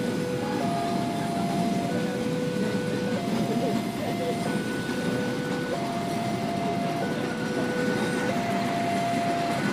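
Level crossing warning alarm sounding a slow two-tone alternation, low then high, each tone a little over a second long, over the rumble of passenger coaches rolling past on the rails.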